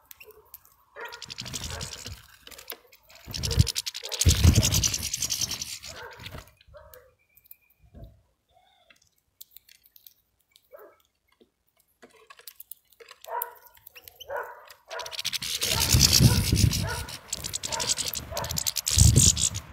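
Finches at a sunflower-seed feeder close to the microphone: several loud bursts of wing flutter and scuffling as birds land and take off, with short calls in between.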